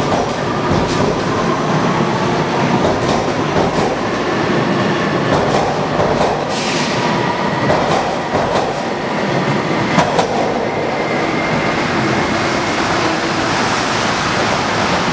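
Toronto subway Hawker-Siddeley H6 train running through a station at speed without stopping: a steady rumble broken by irregular clacks of the wheels over rail joints, with a faint high wheel squeal.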